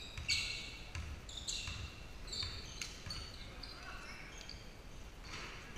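Basketball game on a hardwood gym floor: the ball thumping as it is dribbled, about one bounce every half second to second, with sneakers squeaking sharply on the court.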